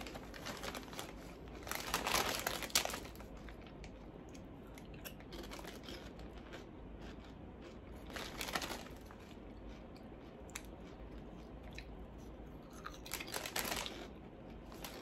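Plastic packaging and bags rustling and crinkling as items are handled, in a few short bursts.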